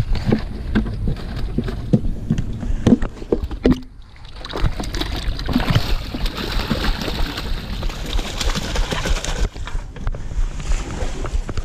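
Knocks and rattles as a plastic bucket lid is handled. Then, from about four and a half seconds in, water and trout are poured from the plastic bucket into a stream, splashing steadily for about five seconds before stopping.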